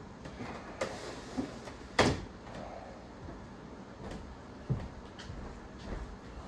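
Plastic side panels of a window air conditioner being slid shut, with a few sharp clacks and knocks, the loudest about two seconds in.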